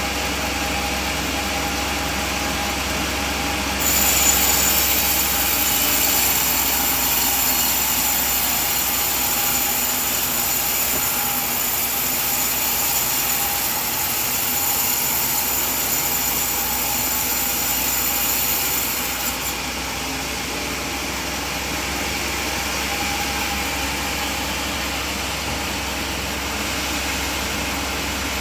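Sawmill bandsaw running steadily; about four seconds in a louder, high-pitched sound joins as the blade cuts through the coconut log, stopping about fifteen seconds later while the machine runs on.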